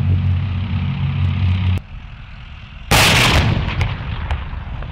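Leopard 2 main battle tank's V12 diesel running steadily with track and drivetrain noise, cutting off abruptly nearly two seconds in. About three seconds in comes a single loud cannon blast that dies away over about a second.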